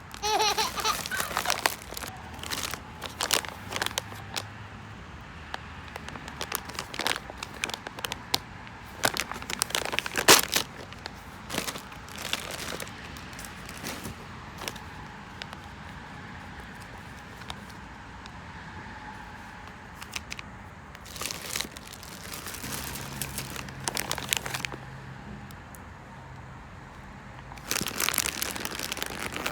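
Plastic snack packaging being crinkled and torn open by hand, in bursts of crackling handling separated by quieter pauses.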